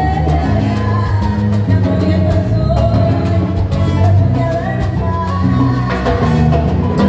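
Salsa orchestra playing, with a steady percussion beat under bass and melodic lines.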